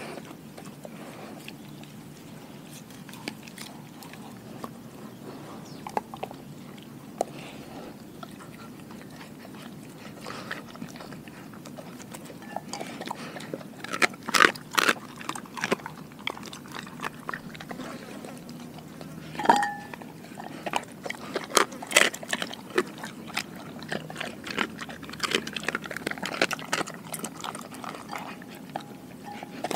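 A Doberman eating raw chicken hearts out of a glass bowl: wet chewing and biting with sharp clicks. It is sparse for the first part and becomes busy from about halfway.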